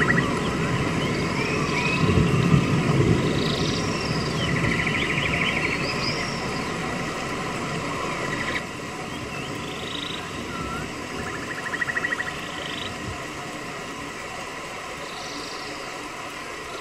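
Animal calls: short arching chirps and several pulsed trills over a low rumble. The rumble grows fainter after about eight seconds.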